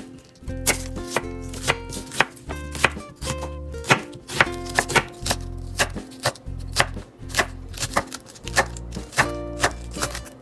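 Chef's knife chopping an onion and then green onions on a wooden cutting board: a quick, uneven run of sharp knocks of the blade on the board, several a second.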